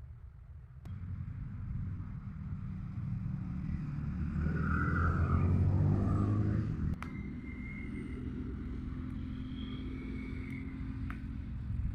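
Low rumble of a motor vehicle, building up to a peak and then cutting off abruptly about seven seconds in, followed by a steadier, quieter low rumble.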